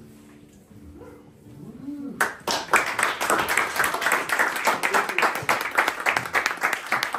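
Small audience applauding. After a short hush it starts suddenly about two seconds in, as brisk, dense hand clapping.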